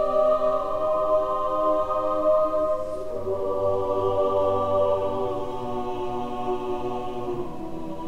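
Outro music of slow, sustained choir-like chords that change about three seconds in and again near the end, slowly fading.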